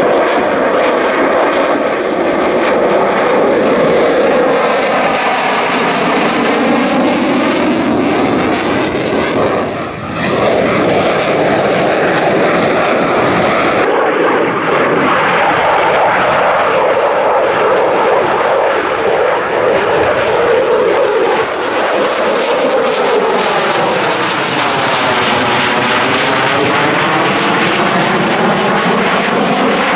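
Loud jet noise from an RAF Eurofighter Typhoon's twin EJ200 turbofans during a display flypast. The noise is continuous, with tones sweeping up and down as the jet moves across the sky, and dips briefly about ten seconds in.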